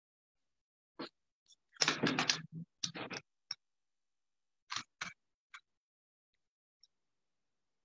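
Sheets of paper being handled and shuffled on a desk close to the microphone: short scraping, rustling bursts, the busiest about two seconds in and a few more near five seconds, with dead silence between them.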